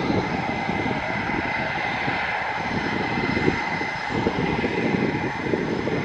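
Saab Gripen F-39 jet fighter's General Electric F414 turbofan running at taxi power as the jet rolls along the runway: a steady jet roar with a thin high whine held throughout and an uneven low rumble underneath.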